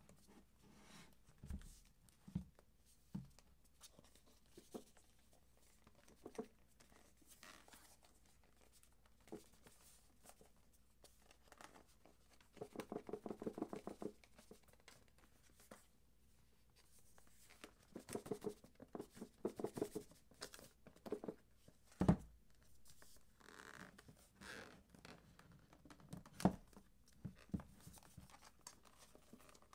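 Hands handling a cardboard iPad box on a wooden desk, with scattered soft taps and knocks. The loudest knock comes about two-thirds of the way in. Two stretches of rapid, crackly scratching and tearing against the box come in the middle and shortly after.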